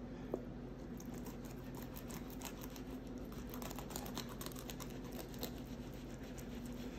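Fillet knife cutting along a kokanee's backbone: a faint, irregular run of small clicks and crunches as the blade works over the bones, with one sharper click about a third of a second in. Under it runs a low, steady hum.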